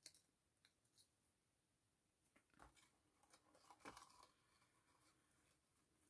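Near silence with faint rustling and a few soft clicks as ribbon is pulled through the slots of a card gift bag, the loudest about two and a half and four seconds in.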